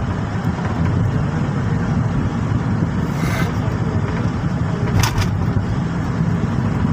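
Steady low road and engine rumble of a car driving at highway speed, heard from inside the cabin. There are a couple of brief sharp ticks about five seconds in.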